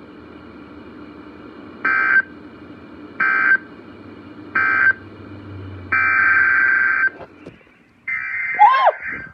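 Emergency Alert System digital data bursts, harsh buzzy warbles: three short ones about a second and a half apart, the end-of-message code closing the blizzard warning. About six seconds in a longer burst starts, and another follows near the end, as the header of the next alert begins.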